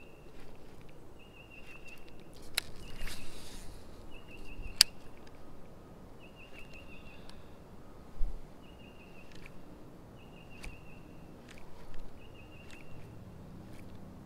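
A short, high trilled animal call repeating about every one to two seconds, over scattered sharp clicks and a brief rush of noise about three seconds in.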